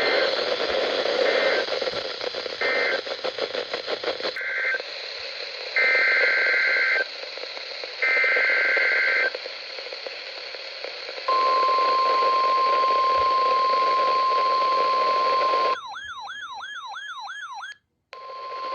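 NOAA Weather Radio alert signalling over radio hiss: three short screeching data chirps (the end-of-message bursts), then two longer chirps of about a second each (SAME header bursts for the next alert). Then the steady 1050 Hz warning alarm tone for about four and a half seconds, a brief warbling, sweeping tone, a moment of silence, and the alarm tone starting again near the end.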